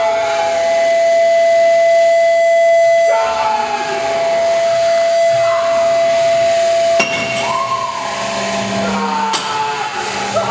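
Live harsh-noise feedback from microphones and a PA sound system: a steady ringing tone held for about seven seconds under other wavering tones, then a sharp crack, after which the tones shift and glide, with a second crack near the end.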